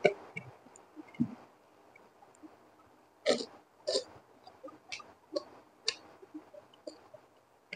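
Close-up eating sounds of a mouthful of egg fried rice being chewed: wet mouth clicks and smacks, with two louder sharp smacks about three seconds in and a string of softer clicks after them.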